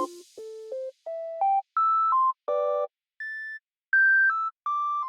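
Background music: a simple synthesized melody of short, clean beeping notes stepping up and down in pitch, a few of them sounded as chords, with brief silences between notes.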